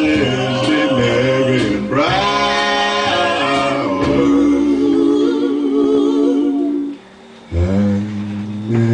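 Singing, with long held notes that waver in pitch; it breaks off briefly about seven seconds in, then picks up again.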